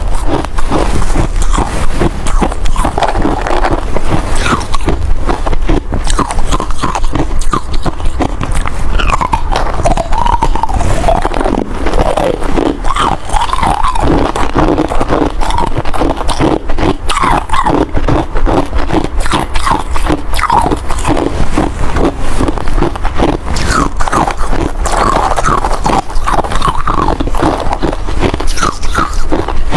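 A person biting and chewing hard ice close to the microphone: continuous rapid crunching and cracking.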